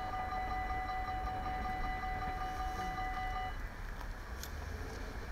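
Dutch level-crossing warning bells ringing rapidly as a steady high electronic tone, then cutting off suddenly about three and a half seconds in, over a low steady rumble.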